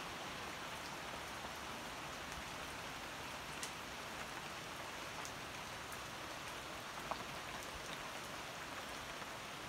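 Steady rain falling on garden foliage and paving, an even hiss with a few louder drops ticking now and then.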